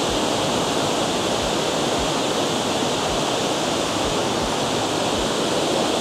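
Water rushing steadily over a spillway, an even noise with no breaks.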